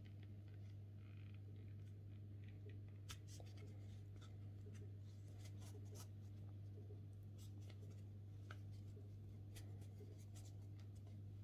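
Faint scratchy rustling and scattered light clicks of a metal crochet hook drawing thick T-shirt yarn through stitches, over a steady low hum.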